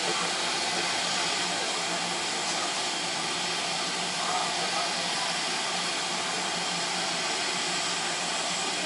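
Steady hiss of steam escaping from a steam locomotive standing at the platform, even and unbroken throughout.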